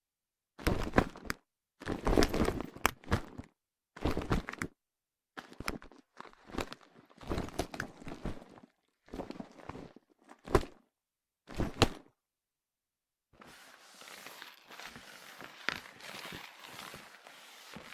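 A pleather handbag with a metal chain strap handled in a string of short separate takes: knocks as it is dropped and flipped on hardwood, with scrapes and rustles between. About two-thirds through, a quieter continuous rustle with faint clicks begins.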